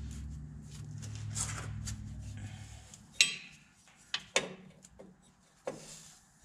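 Wrench clinking and scraping on the air line fittings of a truck's drive-axle air brake chamber as they are loosened, with several sharp metal clicks in the second half. A low steady hum runs under the first half and stops about three seconds in.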